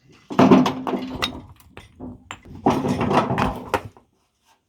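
Stones clattering and knocking together as they are dumped onto a pile, in two bursts about two seconds apart.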